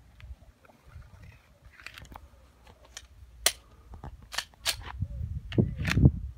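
Pistol shots elsewhere on the range: a scattering of sharp cracks, the loudest about halfway through and near the end, with a low rumble near the end.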